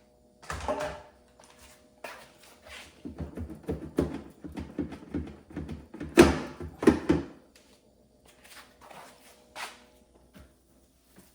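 Knocks, thunks and clatter of items and plastic bins being handled and set into a refrigerator. A quick run of knocks comes in the middle, and the loudest thumps fall about six to seven seconds in.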